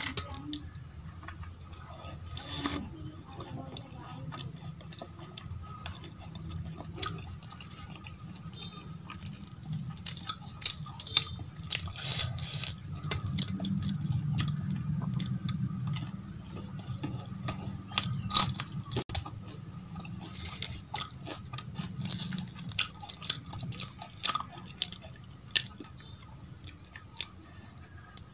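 Close-miked chewing and biting of deep-fried aloo kachoris dipped in potato curry, with many short mouth clicks and crunches throughout, over a low steady hum.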